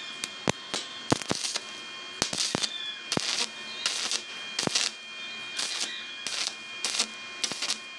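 Arc welding on a stainless steel handrail tube, the arc struck in short crackling bursts about a dozen times. It runs at about 100 amps with a filler rod, stitching up a wide gap in the joint.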